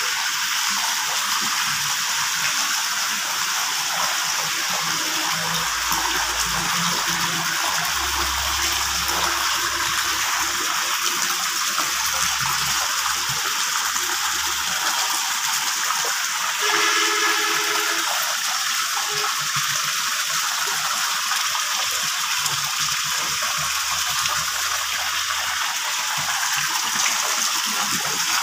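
Water gushing steadily from a pipe into a fish tank and splashing onto the surface.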